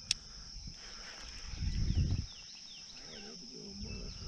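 Outdoor ambience: a steady high-pitched insect drone, with a bird giving a short run of quick descending chirps in the middle. A sharp click sounds just after the start, and a brief low rumble about two seconds in.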